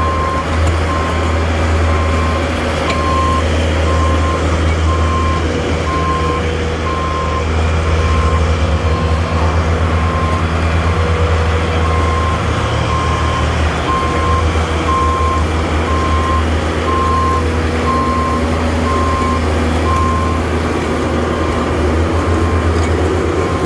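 Skid steer's backup alarm beeping about once a second over its steadily running engine, the sign that the machine is reversing; the beeping pauses briefly near the end.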